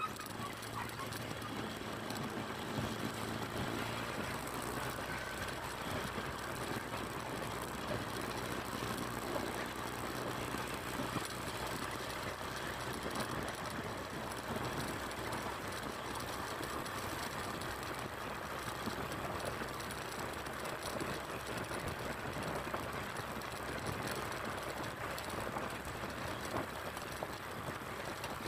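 Steady running noise of a small vehicle riding along a concrete lane: a low hum under an even rush of road and air noise.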